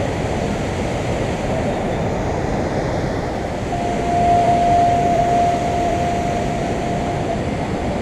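Kuntala Waterfall on the Kadam river, muddy floodwater rushing over the rock ledge in a steady, dense wash of sound. About four seconds in, a steady high tone joins it and holds for about three seconds.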